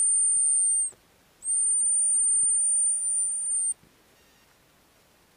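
Two long, steady, very high-pitched blasts on a dog whistle, the first ending about a second in and the second lasting about two seconds: a recall signal calling the hunting dog back.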